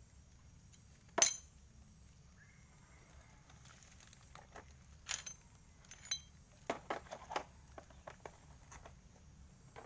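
Scattered clinks and knocks of small hard objects being handled, the sharpest about a second in and a quicker cluster in the second half; the engine is not running.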